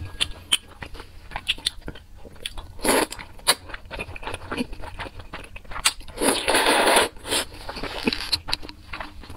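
Close-miked eating sounds of thick noodles in spicy sauce: wet chewing and smacking clicks throughout, with a short slurp about three seconds in and a longer, louder slurp a little after six seconds.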